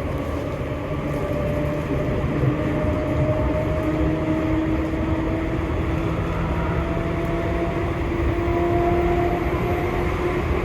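Seibu 2000 series electric train's traction motors whining over the running rumble. The whine rises slowly in pitch as the train gathers speed.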